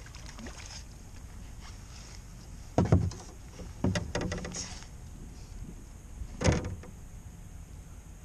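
Three dull thumps on a small fishing boat, about three, four and six and a half seconds in, the middle one trailing into a short scrape, as the seated angler shifts while working an ultralight rod; under them runs a low steady rumble.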